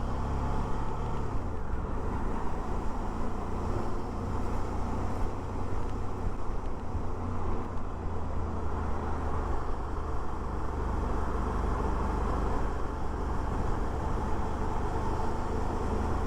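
Suzuki V-Strom 650's V-twin engine running steadily under way, with road noise.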